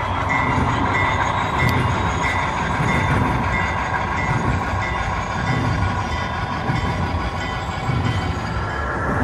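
Model diesel locomotive running slowly along layout track: a steady rumbling train sound.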